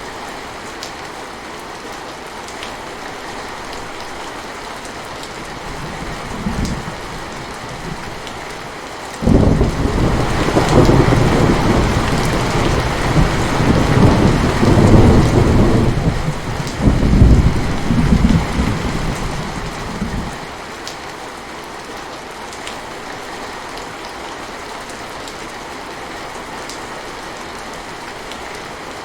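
Steady heavy rain falling. About nine seconds in, a loud roll of thunder breaks in suddenly, rumbles on for around eleven seconds, and dies away, leaving the rain alone.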